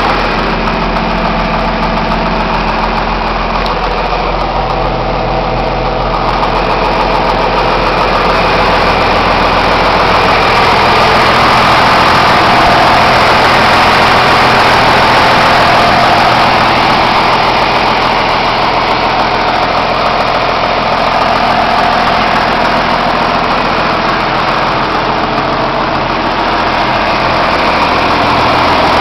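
John Deere 4440 tractor's six-cylinder turbocharged diesel engine idling steadily.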